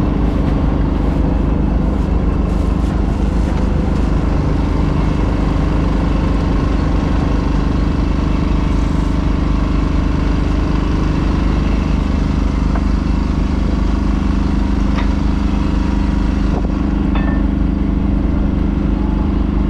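A fishing boat's engine running steadily, an even drone with no change in speed.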